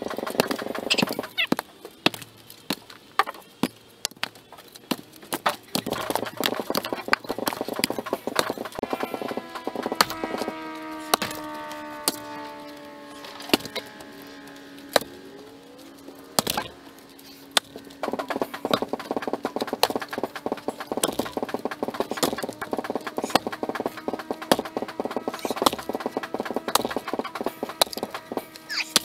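Fir log rounds thrown off a pickup truck bed, landing on the pile with a rapid, dense run of hard wooden knocks and thuds.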